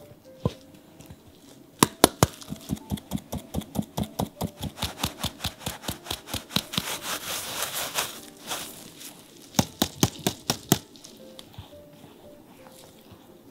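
A stainless-steel mesh sieve full of flour being shaken and knocked against a glass bowl to sift it. It makes a fast, even run of sharp metal-on-glass knocks, about five a second, for roughly nine seconds, then stops.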